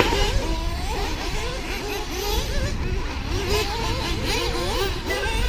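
Several radio-controlled racing cars' motors whining together. Their pitches keep rising and falling as the cars accelerate and brake around the track, over a low rumble.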